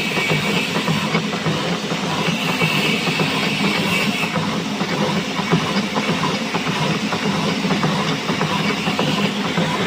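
Power hacksaw cutting through a steel pipe: a steady, dense mechanical clatter with no pauses.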